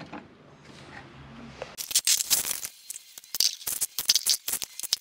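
Scrap metal-detecting finds, rusty nails and small pieces of lead, copper and brass, clinking and rattling as a hand rakes through them in a plastic sieve. It comes as an irregular run of sharp clicks starting about two seconds in.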